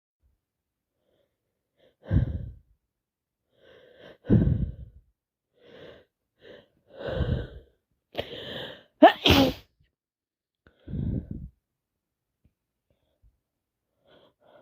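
A woman sneezing over and over in a long run, with short breaths drawn between the sneezes; the loudest are two sneezes close together about nine seconds in. The sneezing comes from allergies on top of a cold.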